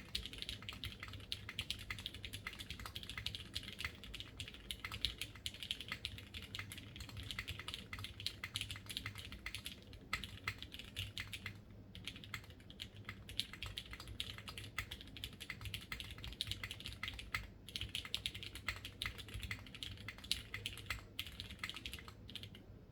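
Steady fast typing on a custom mechanical keyboard: lubed Cherry MX Red linear switches (with switch films) on an aluminium plate in a Noxary X60, keys clacking quickly and continuously with a couple of brief pauses.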